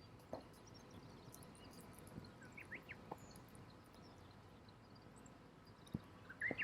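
Campfire burning quietly with a few scattered crackles and pops. Short high bird chirps come in about halfway through and again near the end.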